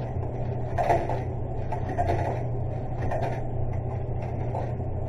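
Vending machine's steady low hum, with a few short clicks and rustles about a second apart as money is fed into its slot.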